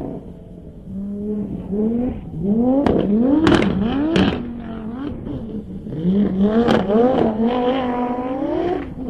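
Super F1000 Nissan Micra rally car's engine heard from inside the car, revving hard and repeatedly climbing in pitch then dropping as it shifts up through the gears, with several sharp knocks from the car over the rough stage.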